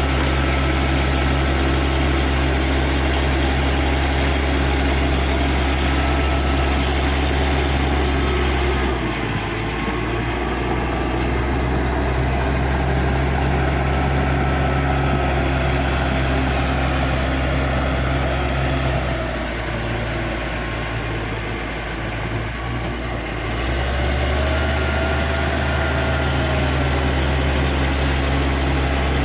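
Caterpillar D6G bulldozer's diesel engine running steadily. Its pitch drops about a third of the way in, and it eases off again before climbing back up near the end.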